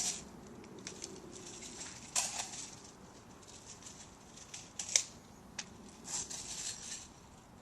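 Irregular crunching and rustling of dry leaves and brush, as from someone moving through undergrowth, with a few sharp snaps or clicks, the loudest about five seconds in.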